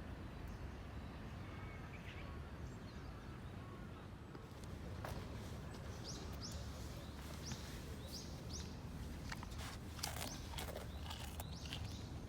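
Outdoor ambience with a low steady rumble; from about five seconds in, a bird gives a series of short high chirps, and a few short sharp noises come near the end.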